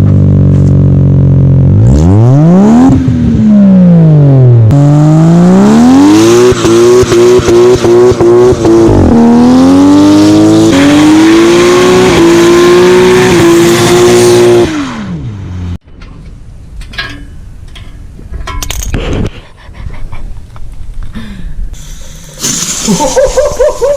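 Car engine revved repeatedly with a cheap add-on turbo whistle fitted, giving a whistling tone over the engine that rises and falls with the revs. There is a run of quick rev blips partway through. The sound cuts off abruptly about two-thirds of the way in, leaving quieter scattered noises.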